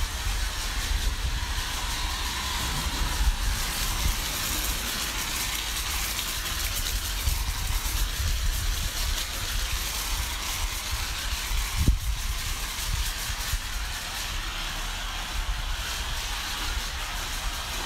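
Steady hissing and low rumbling of car-cleaning equipment running, with a single sharp knock about twelve seconds in.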